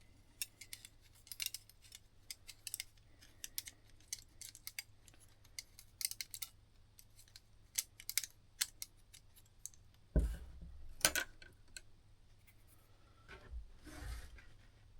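Small metallic clicks and snips of spring clamps being fitted onto the mainsprings of a Seth Thomas clock movement, with a heavier thump about ten seconds in.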